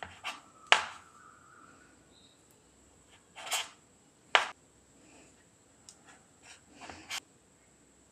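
Kitchen knife cutting the crusts off slices of sandwich bread on a wooden chopping board: about six short, sharp crunching strokes, the loudest about a second in and two more close together in the middle.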